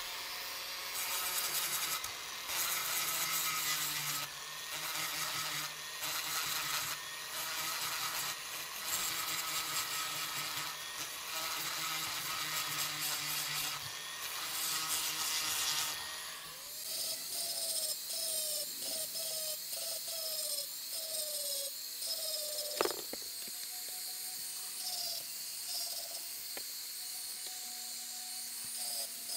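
Small high-speed rotary tool with a sanding drum grinding casting flaws out of an aluminium cylinder head's exhaust port, a steady whine that wavers as it bears on the metal. About sixteen seconds in the tool's tone changes to a lower, wavering whine.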